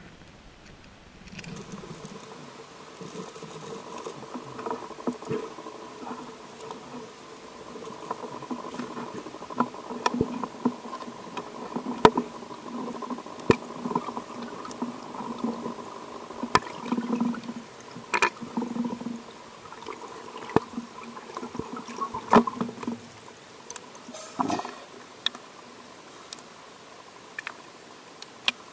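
Muffled underwater water noise with scattered sharp clicks.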